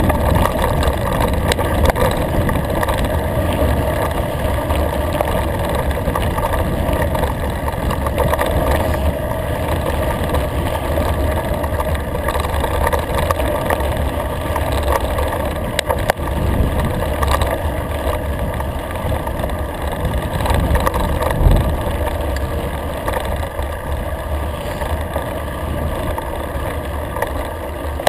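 Mountain bike rolling fast downhill on a gravel track: a steady rush of wind and tyre rumble with occasional short knocks and rattles from bumps.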